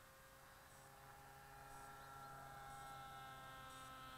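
Near silence with a faint steady hum made of several tones that drift slightly in pitch and swell a little in the middle.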